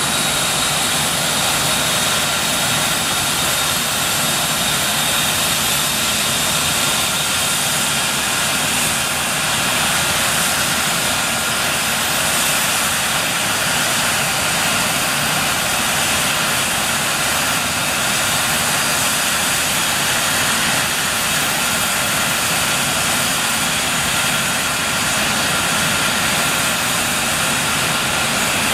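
Eurocopter EC135 twin-turbine helicopter running on the ground, its turbines giving a steady high whine over an even rushing noise.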